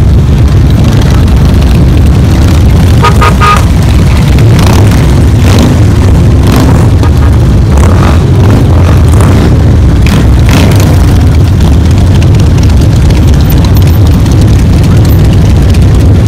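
A procession of cruiser and touring motorcycles riding past at low speed: a loud, steady, deep engine rumble from many bikes together. A short horn toot sounds about three seconds in.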